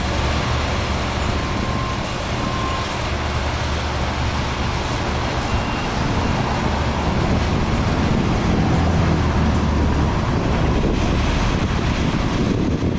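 Steady rumble of passing road traffic. Two short faint beeps come about one and a half and two and a half seconds in.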